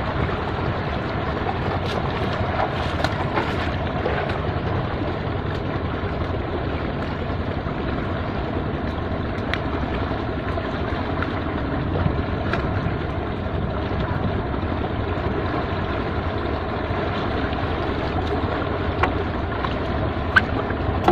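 Steady rush of wind on the microphone and shallow sea water washing over submerged rubble, with a few short clicks.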